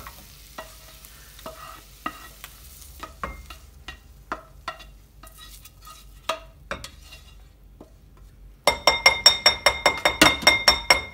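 Cooked minced beef and onions being scraped out of a non-stick frying pan into a bowl with kitchen tongs: scattered light scrapes and clicks, with a faint sizzle dying away at first. Near the end comes a fast run of ringing taps, about seven a second.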